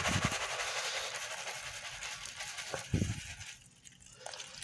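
Lukewarm tap water running in a steady stream at a sink, with a knock about three seconds in, and the stream stops about half a second later.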